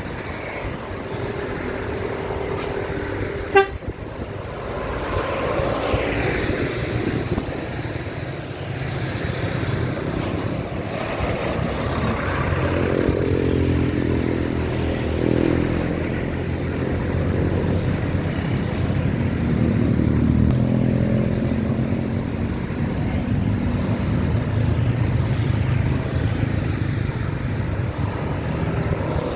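A bus passing close with its engine running loud and its horn sounding, an Indonesian 'telolet' musical bus horn. A held horn note comes first and ends in a sharp loud crack a few seconds in. Wavering horn tones then sound over the building engine rumble.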